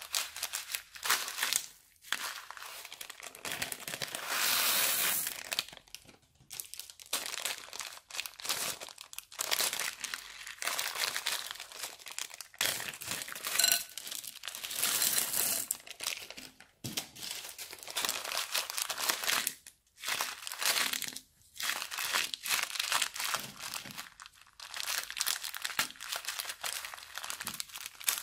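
Thin plastic zip-lock bags crinkling as they are handled and emptied of beads, in irregular bursts with short pauses between them.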